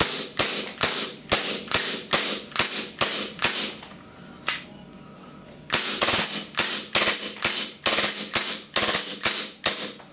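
WE G34/G35 gas blowback airsoft pistol firing semi-auto shots in a steady rhythm, about two a second, each shot a sharp crack with the slide cycling. The firing pauses for about two seconds midway, with one faint shot in the gap, then resumes.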